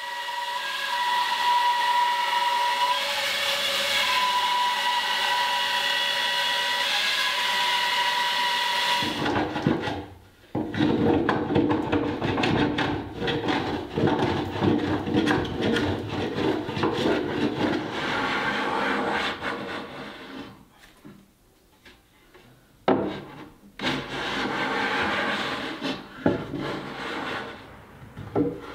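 For about the first nine seconds a shop machine runs with a steady whine. It then gives way to irregular rubbing and scraping of hand work on cherry wood, with one sharp knock, ending with a Japanese hand plane shaving the cupboard's edge.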